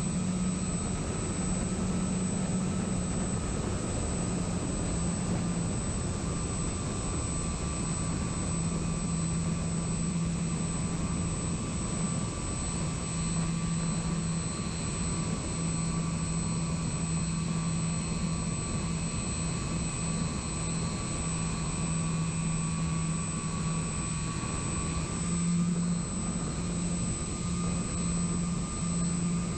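Electric motor and propeller of a radio-controlled plane, heard from its own onboard camera in flight: a steady droning hum with a thin higher whine. Its pitch dips slightly a few seconds in and rises again near the end as the throttle changes.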